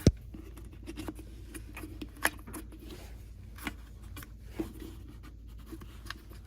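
Sharp knocks and clicks from a garbage disposal and its loose dishwasher knockout plug being handled, with light scraping between. The loudest knock comes right at the start and another about two seconds in.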